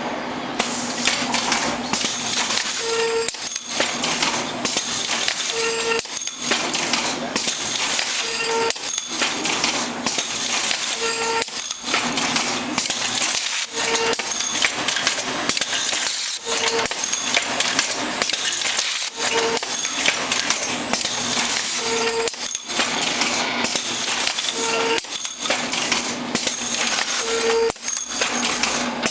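Automated Packaging PI-4000 imprinter and its bagger cycling steadily, printing and feeding bags: a continuous mechanical clatter with a short low tone once every cycle, about every two and three-quarter seconds, each followed by a brief lull.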